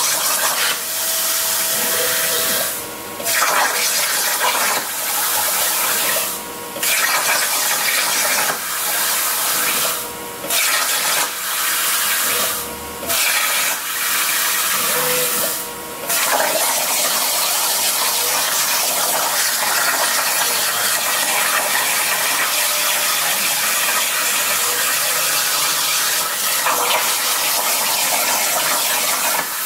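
Longevity ForceCut 42i plasma cutter's arc hissing steadily as the CNC torch cuts 16-gauge sheet steel. The arc stops for a moment about five times in the first half, then runs on without a break.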